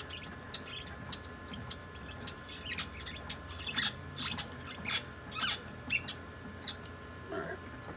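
A wrench turning the blank holder's fitting on an Amann Girrbach Motion 2 dental milling unit, giving off a run of short, irregular metal squeaks and scrapes, some rising quickly in pitch, as the holder is loosened.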